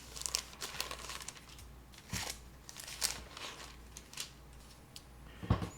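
Paper rustling and crackling as the thin pages of a Bible are leafed through, with a couple of soft thumps near the end.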